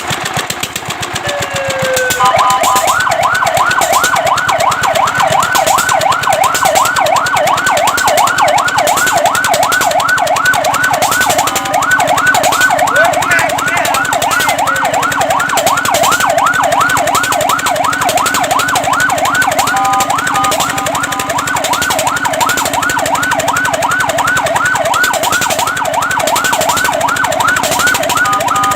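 Fire truck siren in fast yelp mode: a rising whoop repeating about three times a second, starting about two seconds in, with brief steady-tone breaks in the pattern twice.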